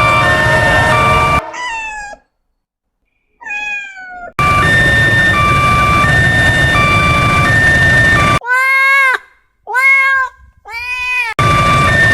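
Domestic cat meowing five times: two falling meows in the first half, then three arched meows near the end. Between them a loud steady background with two alternating tones plays.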